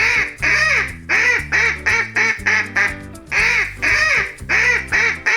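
Duck quacking: a run of short quacks, about two a second, played twice over, over a children's music backing with a steady bass line.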